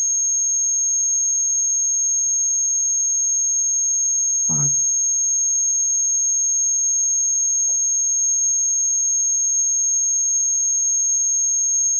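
A steady, high-pitched electronic tone that holds one unchanging pitch throughout, with a brief vocal sound about four and a half seconds in.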